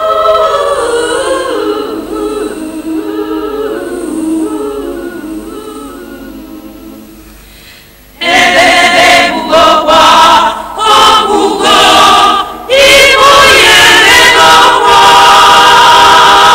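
A choir of voices singing unaccompanied, fading away over the first several seconds. About eight seconds in, loud group singing comes in suddenly with short broken phrases, then holds longer notes near the end.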